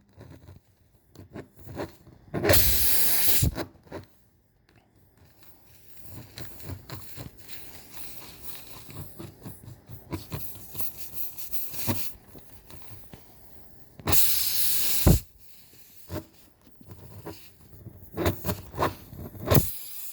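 Tire plug kit's reamer tool being worked in and out of a puncture in the tire tread, with faint scraping and clicking. There are two loud bursts of hiss about a second long, one a couple of seconds in and one about two-thirds of the way through.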